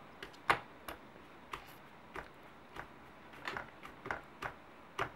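Baby sucking and mouthing his fingers: a series of soft, irregular wet clicks and smacks, about two a second, the loudest about half a second in.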